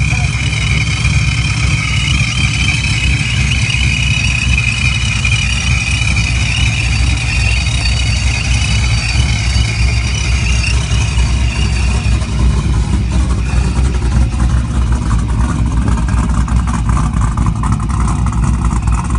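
Engine with heads, cam, intake and a ProCharger D1X supercharger on an 8-rib belt, idling steadily. A steady high whine is heard over the rumble and fades about halfway through.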